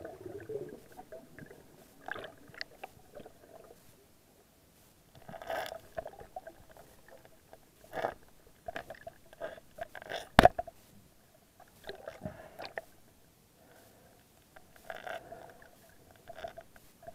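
Muffled underwater knocks and scrapes of a metal spear or hook and the camera against rock while an octopus is worked out of its hole. One sharp, loud knock comes about ten seconds in.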